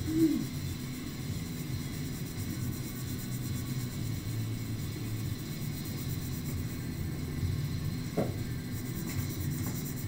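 Steady low background rumble of room noise, with a brief squeak just after the start and another short squeak about eight seconds in.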